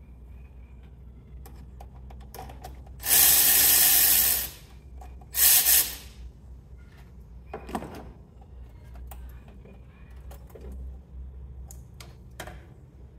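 Cordless electric ratchet running in two short bursts, the first about a second and a half long and the second half a second, with light clicks and knocks of tools and parts being handled between them.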